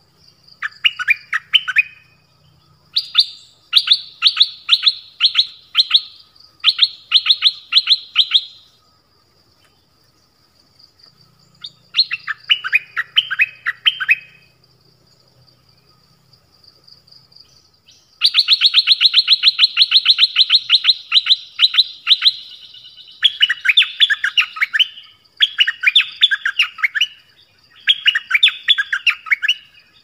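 Stripe-throated bulbul singing: about eight phrases of fast, chattering repeated notes separated by short pauses, with the longest unbroken run a little past the middle. A faint steady high-pitched tone runs underneath.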